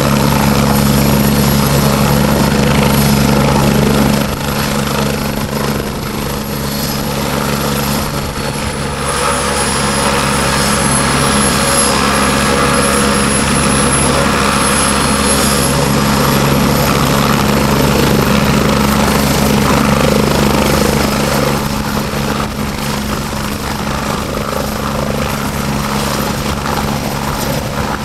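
Agusta 109 twin-turbine helicopter running on the ground, with a steady rotor beat under a high turbine whine, lifting into a low hover near the end.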